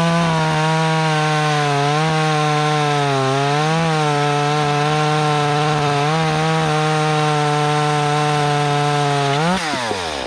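25cc two-stroke chainsaw cutting at full throttle through an 11-inch hardwood log, its engine note steady with small dips as the chain loads up. Near the end it revs up briefly, then falls away as the throttle is let off.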